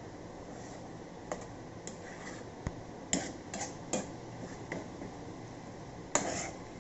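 Spatula scraping and knocking against a metal kadai as noodles are stirred and tossed: irregular sharp clicks and short scrapes, a cluster of them in the middle and the loudest, longest scrape about six seconds in.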